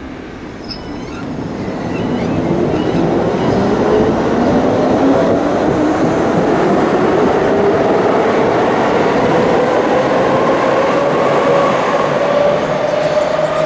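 Hamburg U-Bahn electric train accelerating away: its traction motors give a whine that climbs steadily in pitch, over the rumble of the wheels on the rails. The sound grows louder about two seconds in and stays loud.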